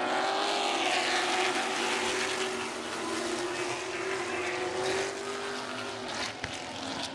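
A pack of Super Late Model stock cars racing around a short asphalt oval, their V8 engines running together at speed in one steady, wavering note that eases a little after about five seconds, with a single sharp click near the end.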